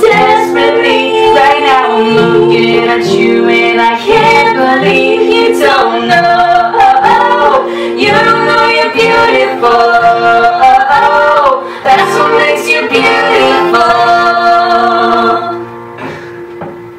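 Male and female voices singing a pop duet over a strummed acoustic guitar. About a second and a half before the end the song stops and the last chord rings out and fades.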